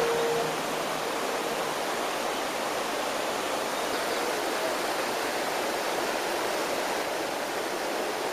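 Steady rush of flowing, falling water, an even hiss that does not change. The last held note of background music fades out in the first second or so.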